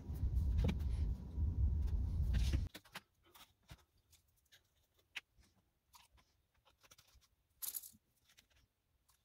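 A loud low rumble that cuts off suddenly about two and a half seconds in. After it come faint small clicks and taps of plastic bottles and a plastic cup being handled, with one short scratchy rustle near the end.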